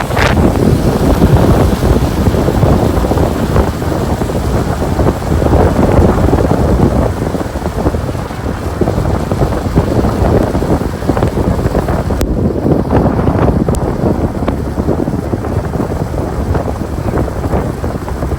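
Wind buffeting the microphone: a loud, rumbling rush that keeps up without a break.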